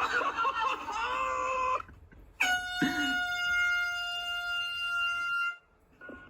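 A wavering, high-pitched cry or wail for about two seconds, then a loud, steady horn blast held on one pitch for about three seconds that cuts off suddenly.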